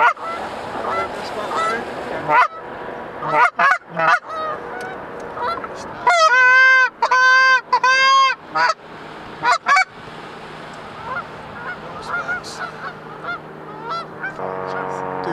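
Geese honking: faint honks throughout, with a run of loud, close honks around the middle.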